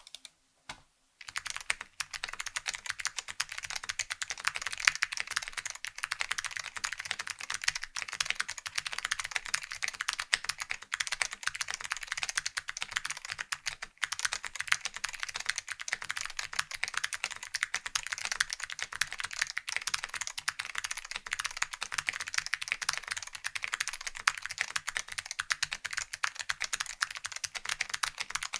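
Fast, continuous typing on a custom mechanical keyboard with clicky Blue Alps (SKCM) switches, lubed and mounted in a Delrin (POM) plate, with IBM 5140 keycaps. The typing starts about a second in and pauses briefly about halfway through.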